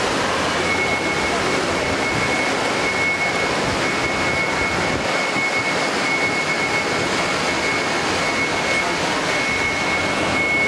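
Busy crowd hubbub at an airport terminal: a dense, steady wash of mixed voices and noise, with a thin high steady whine that starts about a second in.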